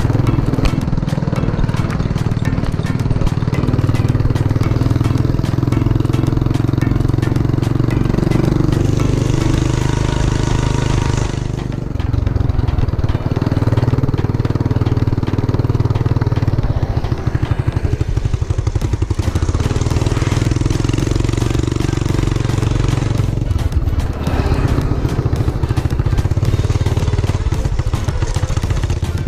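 Small motorbike engine running steadily while riding, its note easing off and picking up again a few times as the throttle changes.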